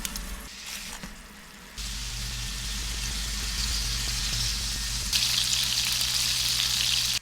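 Meat sizzling on a hot cooking surface: a steady frying hiss sets in about two seconds in, gets louder about five seconds in, and stops abruptly at the end.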